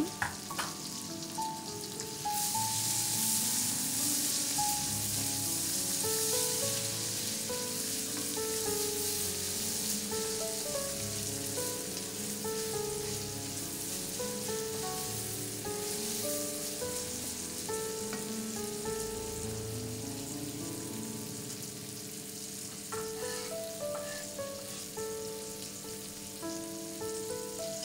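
Sliced onions sizzling as they fry in hot oil in a pan, cooking towards lightly golden. The sizzle comes up about two seconds in and eases near the end, over soft background music of short stepping notes.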